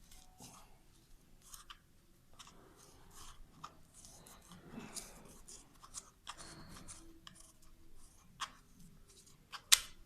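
Light scraping and rubbing with scattered small clicks, as of hands working on metal parts, and a sharp click near the end.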